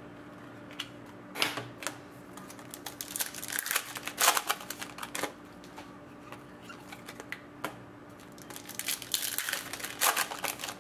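Panini Contenders hockey cards being handled and shuffled through by hand, giving scattered clicks and flicks of card edges. Near the end comes a stretch of crinkling as a foil card pack is opened.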